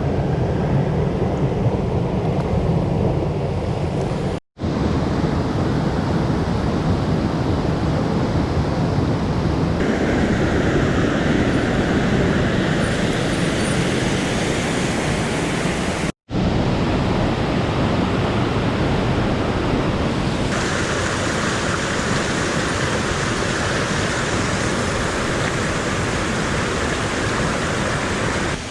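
Rushing water of a mountain stream, a steady loud rush. It breaks off twice for an instant and its tone shifts between shots.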